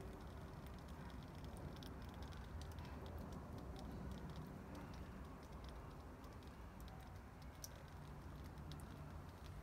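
Water draining from the bottom of a terracotta pot of freshly watered compost, dripping onto a wooden seat: a faint, irregular patter of drops over a steady low background rumble.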